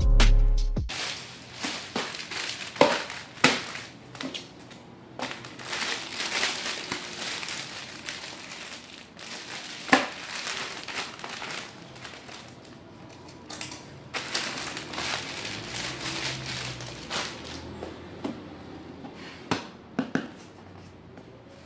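Plastic wrapping crinkling and a cardboard laptop box being handled, in irregular rustles with scattered sharp knocks.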